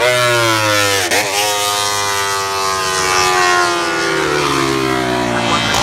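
Racing motorcycle engine at high revs, with a gear change about a second in, after which the pitch falls slowly.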